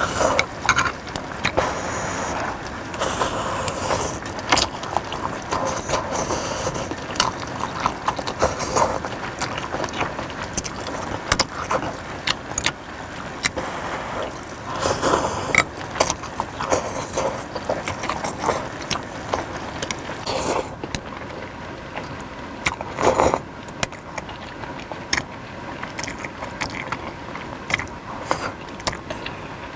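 Close-miked eating of beef suki soup: irregular chewing and slurping, with many short sharp clicks scattered throughout.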